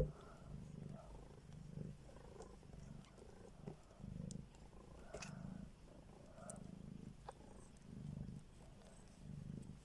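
Domestic cat purring low and steadily, swelling and fading about once a second with its breaths. A sharp click at the very start is the loudest sound.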